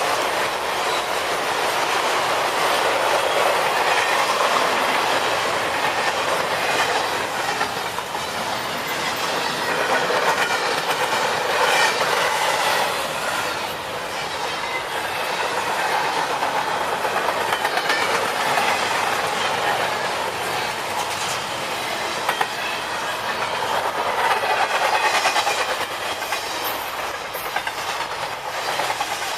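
Norfolk Southern freight train rolling past at speed: a steady rumble of cars with the clickety-clack of wheels over rail joints.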